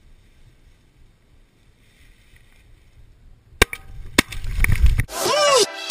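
Two shotgun blasts about half a second apart, after a few seconds of faint wind. Loud electronic music cuts in near the end.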